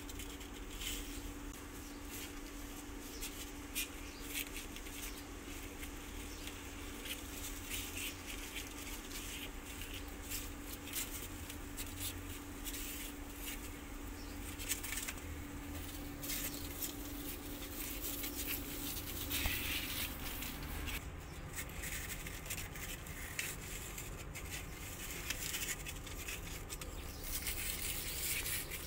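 Soft scratching, rustling and small clicks of kittens nursing and crawling about on cardboard, over a steady low hum.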